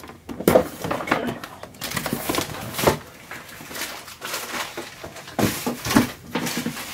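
Plastic packaging rustling and crinkling as it is pulled from a cardboard shipping box, with scattered knocks and bumps of the box being handled on a wooden desk.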